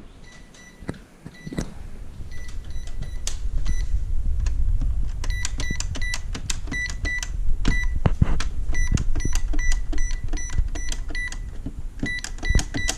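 Many short electronic beeps, all at the same pitch, coming irregularly and growing denser after about five seconds, mixed with sharp clicks and knocks over a low rumble.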